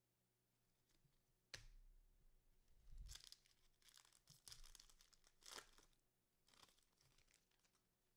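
Faint tearing and crinkling of a trading card pack's wrapper being ripped open, with a sharp click about a second and a half in.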